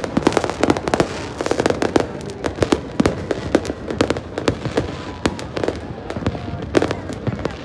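Fireworks display: a dense, irregular barrage of bangs and crackles, several every second, with no let-up.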